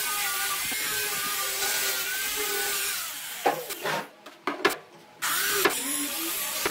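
Electric angle grinder with a sanding pad running against a wooden tabletop, a steady whine over sanding hiss. About three seconds in it drops away for roughly two seconds, broken by a few sharp knocks, then runs again.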